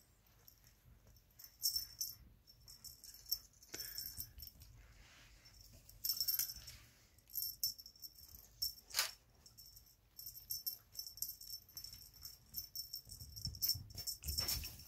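A small bell or rattle on a feather wand cat toy jingling in irregular bursts as a kitten bats, grabs and shakes it, with a few soft knocks.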